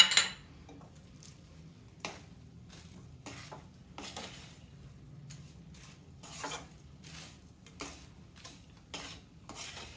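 A spoon scraping and knocking against a pan in short, irregular strokes, stirring a dry mixture of roasted flour and ground nuts. There is a sharp clink right at the start.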